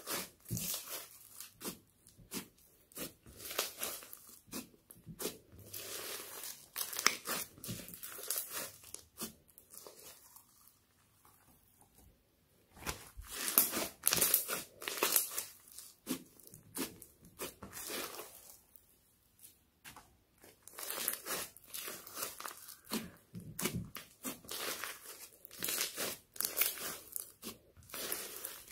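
Foam-bead slime (floam) being kneaded, squeezed and pulled by hand: dense, irregular runs of quick crackles and squelches as the beads pack and pop. There are two short pauses, about a third and two thirds of the way through.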